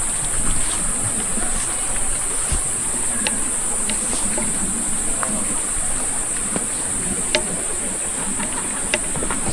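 Steady, high-pitched chorus of insects chirring without a break, with a few faint clicks over it.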